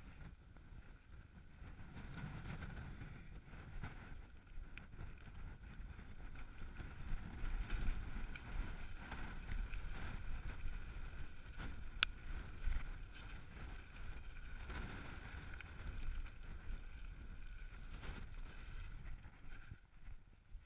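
Mountain bike descending a loose rocky trail: tyres rumbling and crunching over stones, with the bike rattling and wind buffeting the helmet-mounted microphone. A sharp knock comes about 12 seconds in, and the noise drops near the end as the bike comes to a stop.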